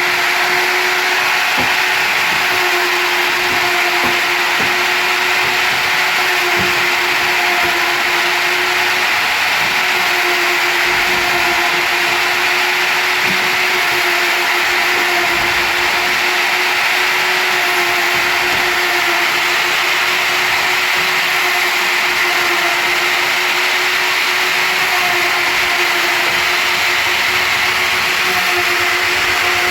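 CNC router spindle running steadily, its bit cutting into wood, a constant whine over a steady cutting noise.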